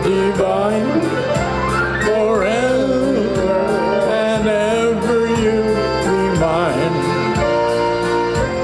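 Live polka band playing, with accordion and keyboards, held chords, a moving melody line and a steady beat.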